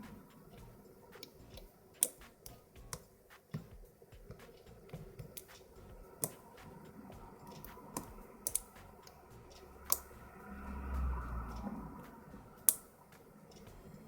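Hook pick and tension wrench working the pin stack of a five-pin pin-tumbler lock during single-pin picking: irregular small metallic clicks and scrapes, with a few sharper clicks spread through, and a brief low rumble of handling about two-thirds of the way in.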